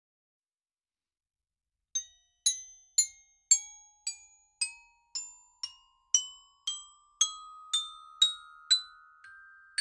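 Silence for about two seconds, then a glockenspiel-like added music cue: single bell-like notes struck about twice a second, each ringing out, climbing slowly in pitch.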